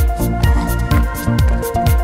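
Background electronic music with a steady beat, a deep kick drum about twice a second under sustained synth notes.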